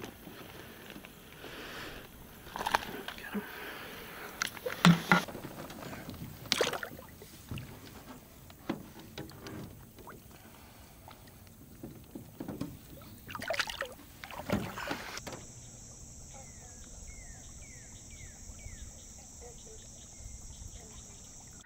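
Water splashing and knocks in a small aluminum boat as a largemouth bass is handled and released by hand. About 15 seconds in the sound changes to a steady high-pitched drone, with a quick run of about five short falling chirps.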